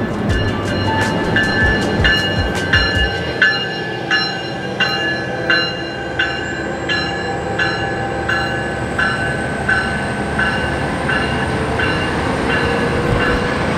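Commuter train locomotive's bell ringing at a steady pace, a metallic ding every half second or so, coming a little less often later, over the rumble of the bilevel train moving along the platform. A faint high whine rises from about six seconds in.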